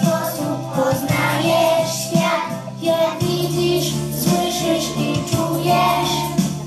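A group of preschool children singing a song together in unison over musical accompaniment.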